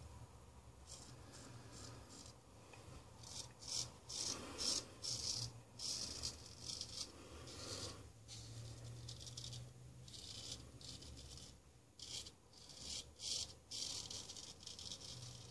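Ralf Aust 5/8 round-point straight razor scraping through lathered stubble on the neck in many short strokes, in irregular clusters, over a steady low hum.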